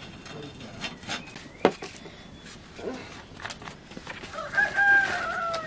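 A rooster crowing once near the end, a single held call that falls slightly in pitch as it ends. Before it, a few sharp knocks, the loudest about two seconds in.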